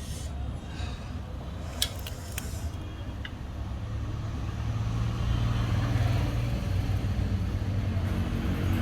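Low rumble of a motor vehicle engine, growing louder about halfway through, with a few sharp metallic clicks in the first few seconds from a box spanner working on an exhaust bend-pipe nut.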